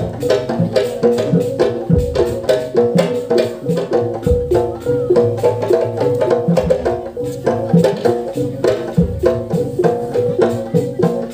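Traditional percussion music accompanying a pencak silat dance: a fast, even run of short tuned metal or wood notes over drums, with a deep low stroke about every two seconds.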